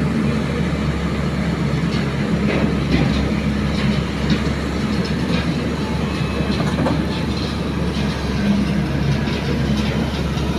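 Diesel engine of a JCB tracked excavator running steadily under hydraulic load as the bucket digs into a sand pile and the machine swings with the load, with scattered short knocks throughout.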